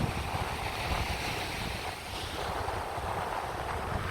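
Rough sea surf washing onto the beach in a steady, swelling rush, with wind buffeting the microphone as a low rumble.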